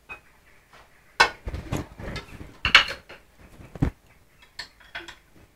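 A utensil clinking and scraping against a frying pan and plate as fried plantain pancakes are lifted and stacked: several sharp knocks, the loudest about a second in, near three seconds in and just before four seconds.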